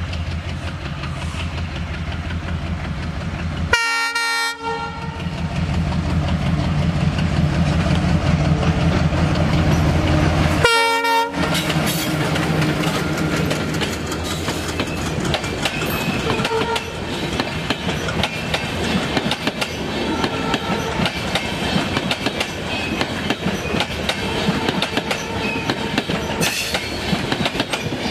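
Diesel locomotive's engine running steadily as it approaches, with two short horn blasts about four and eleven seconds in. Then passing coaches' wheels clatter over the rail joints.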